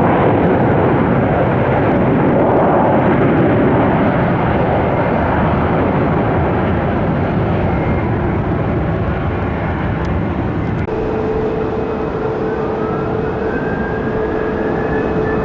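Jet airliner noise: an Airbus A321's engines, slowly easing off after landing. About two-thirds through it gives way to a Boeing 737-700's CFM56 engines, with a steady hum and a rising whine as they spool up for take-off.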